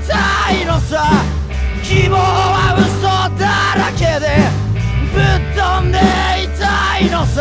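Japanese garage rock band playing at full volume: electric guitar, bass and drums under a steady, driving bass line, with a male vocal.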